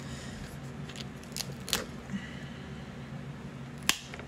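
Cooked crab leg shells cracking and snapping as they are broken apart by hand: a few sharp cracks with small crackles between, the loudest crack near the end.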